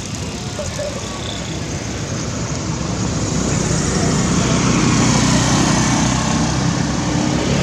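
Road traffic noise: a vehicle engine rumbling steadily, growing louder through the second half.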